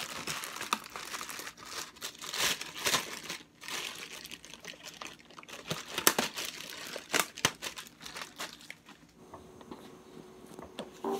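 Clear plastic bag crinkling and rustling as a tripod is handled and pulled out of it, with irregular sharp crackles throughout.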